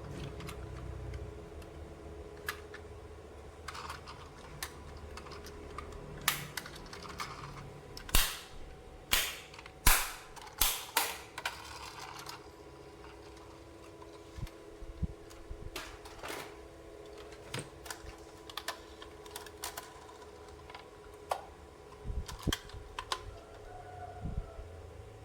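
Hard plastic toy parts and packaging being handled: irregular sharp clicks and snaps, busiest and loudest in the middle, over a faint steady hum.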